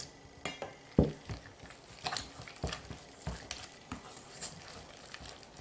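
A utensil stirring wet flour dough in a stainless steel bowl: soft scraping with a clack against the bowl every half second or so, and one louder knock about a second in.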